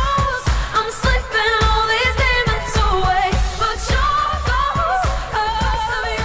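Pop song with a sung vocal over a steady beat.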